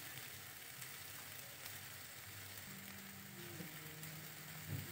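Faint, steady sizzling of a vegetable curry cooking in a pan on the stove.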